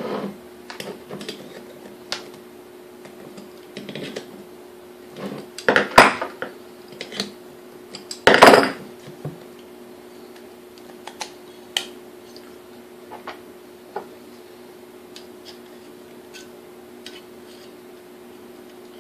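Metal parts of a KitchenAid A9 coffee mill's motor being handled and worked apart on a workbench as bent tabs are straightened: scattered clicks, taps and clinks. Two louder metal clatters come about 6 and 8.5 seconds in.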